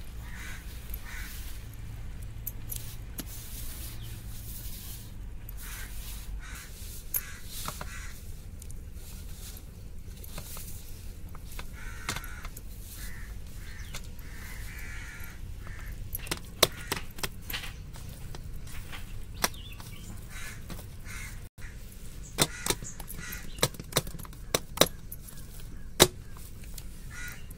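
Hands kneading dough in a hammered steel plate: soft pressing and scraping, with scattered sharp clicks and knocks that come more often and louder in the second half.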